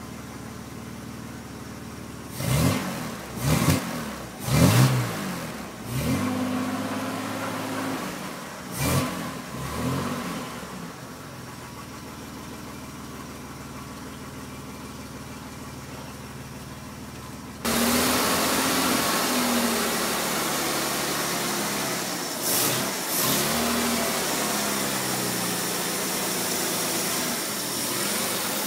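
Reliant Scimitar SE6's Ford Essex V6 heard at its tailpipe, running again after nearly a year laid up: about half a dozen quick throttle blips in the first ten seconds, then a steady idle. About two-thirds of the way through the sound jumps suddenly louder and hissier, with two more short blips.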